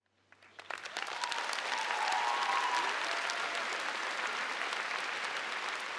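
Crowd applause, many hands clapping: it starts about half a second in, swells over the next two seconds, then slowly tapers off.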